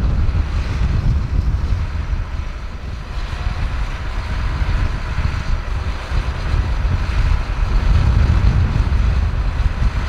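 Strong wind buffeting the microphone, with a tractor engine running underneath.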